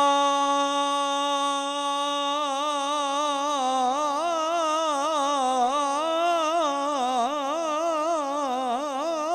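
Male naat reciter's voice holding one long, steady note, then, about two seconds in, breaking into wavering, ornamented runs with no words.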